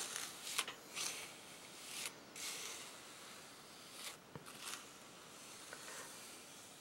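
Plastic palette knife spreading gritty baking-soda texture paste across a plastic stencil on cardstock: a series of faint, irregular scraping strokes.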